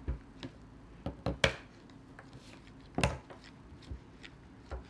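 Plastic spoon stirring a glue mixture in a small plastic bowl, knocking and scraping against the bowl in a few irregular clicks and taps.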